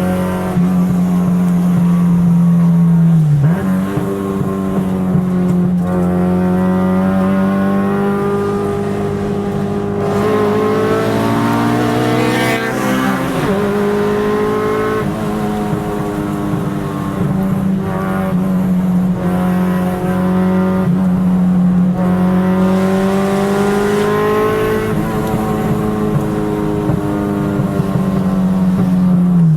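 Car engine running hard at high revs, its pitch mostly held steady, with a few brief dips where the revs drop and climb again and a stretch of shifting pitch near the middle.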